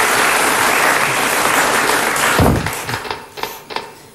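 Studio audience applauding. The dense applause dies away about two and a half seconds in, leaving a few scattered, fading claps.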